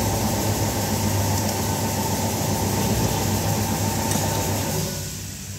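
Steady machine running noise with a low hum and rumble, which drops away near the end.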